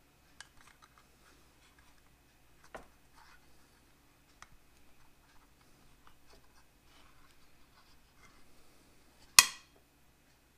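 Small tin-can key being worked on the pull tab of an old ration tin: faint scraping and light clicks, then one sharp, loud click about nine seconds in, with the key failing to open the tab.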